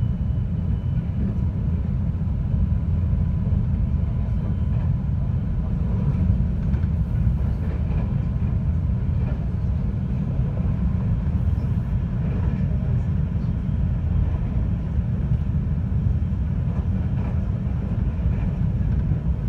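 JR 521-series electric train running along the track, heard from inside the carriage: a steady low rumble of wheels and running gear.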